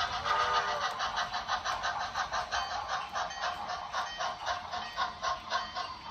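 Model train rolling along the track, its wheels making a steady rhythm of about five light clicks a second that fades as the train moves away. A brief wavering tone sounds in the first second.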